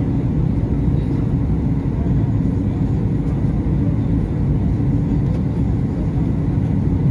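Jet airliner cabin noise heard from a window seat: a steady low rumble of engines and airflow with a constant hum running through it.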